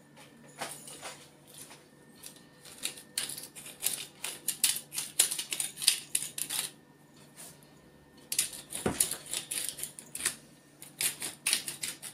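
Hand-twisted spice grinder clicking rapidly as salt and pepper are ground. There are two runs of grinding with a short pause between them.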